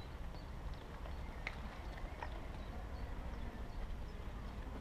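Low, steady rumble of wind on the microphone, with a few faint clicks, about one and a half and two seconds in.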